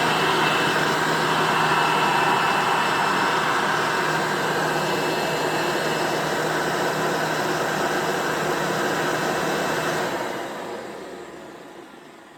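1993 Hoover vacuum cleaner running at a steady speed, then switched off about ten seconds in, its motor winding down and fading out.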